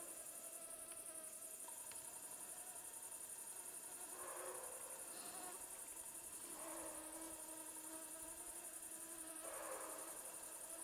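Faint mosquito whine near the microphone, a thin hum that swells and fades three times, over a steady high-pitched chirring of field insects.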